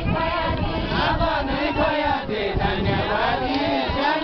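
Group of men and women singing a Deuda folk song together, many voices overlapping, with crowd noise.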